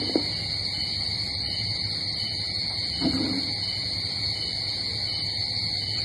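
A steady high-pitched drone over a low hum, with two short soft sounds, one just after the start and one about three seconds in.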